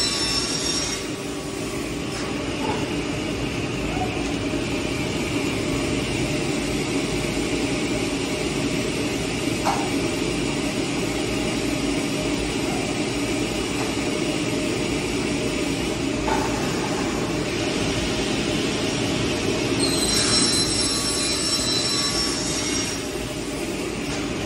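SCM Sigma 65C beam saw running: a steady mechanical noise, with a high-pitched whine for the first second and again for a few seconds near the end.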